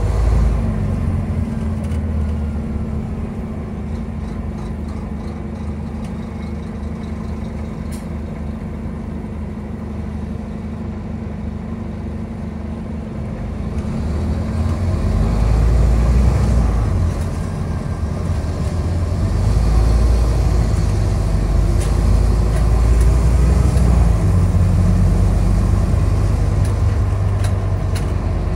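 Scania bus engine and drivetrain heard from a passenger seat inside the bus while it runs along. The engine note is lower for the first half, then grows louder about halfway through, dips briefly, and stays louder near the end.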